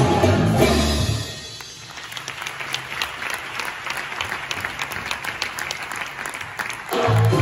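Show music stops about a second in, then an audience applauds with steady clapping; the music starts again near the end.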